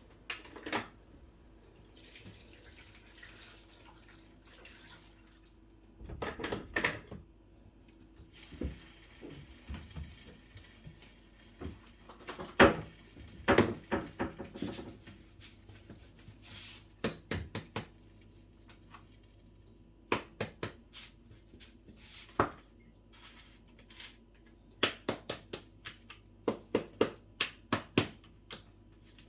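Kitchen work at a sink: a tap runs in short spells and pots, dishes and utensils knock and clatter. A quick run of knocks comes near the end.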